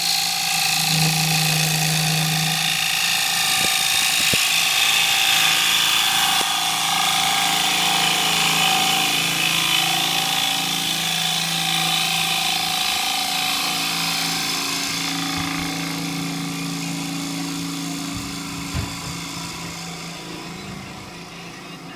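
Wood lathe spinning a cherry bowl while a tool is held against its rim: a steady hiss over the lathe motor's hum, easing off over the last several seconds.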